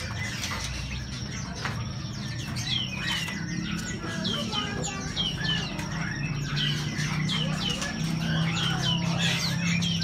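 Many caged songbirds chirping and calling at once: a dense run of short, falling chirps over a low steady hum.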